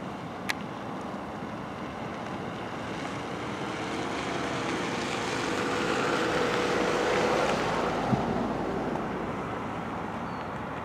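A steady rush of wind and water. Over it a distant engine passes: a low hum swells to its loudest about seven seconds in and then fades. There is a sharp tick about half a second in.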